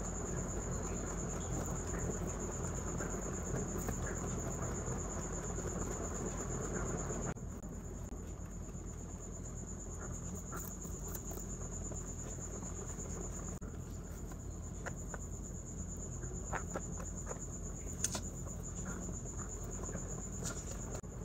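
Rabbits chewing fresh green stalks and hay close to the microphone, a dense crunching that thins about seven seconds in to separate crisp bites. A faint steady high whine sits behind it throughout, and there is a brief louder knock near the end.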